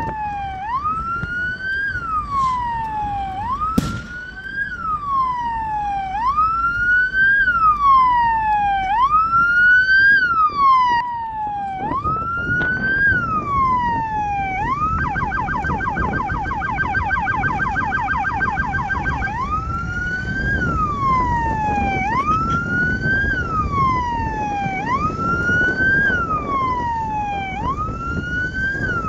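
Electronic vehicle siren sounding a slow wail that rises and falls about once every two seconds. A little past the middle it switches to a fast yelp for about four seconds, then returns to the wail. There is a single sharp click about four seconds in, over a steady low rumble.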